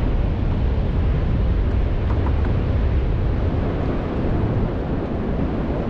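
Wind buffeting the microphone in a steady low rumble over the hiss of open water around a small fishing boat.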